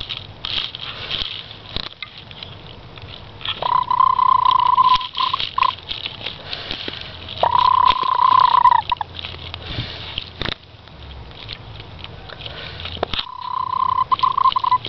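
Speckled Sussex hen on her nest making a purring, trilling call: three drawn-out, steady calls of a second or more each, the first about a quarter of the way in, the second about halfway and the last near the end. Scattered soft clicks and rustles come between the calls.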